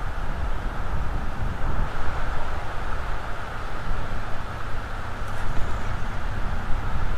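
Wind buffeting the nest camera's outdoor microphone: a steady, gusty low rumble with a hiss over it.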